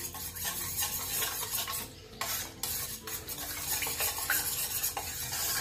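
A metal spoon stirring cold milk in an aluminium saucepan, scraping and swishing steadily against the pan as arrowroot powder is mixed in.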